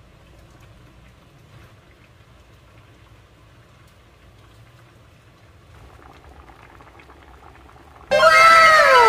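Faint clicks and scrapes of a nylon ladle stirring in a frying pan. About eight seconds in, a loud cascade of falling, chime-like tones sets in suddenly: a musical sound effect laid over the cut.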